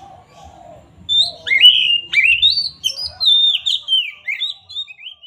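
Oriental magpie-robin (kacer) singing a loud, fast string of clear whistled notes that slide up and down, starting about a second in.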